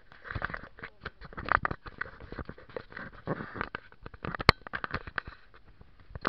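Rubbing and knocking from handling the camera: dense, irregular crackles and clicks, several a second, with one sharper click about four and a half seconds in.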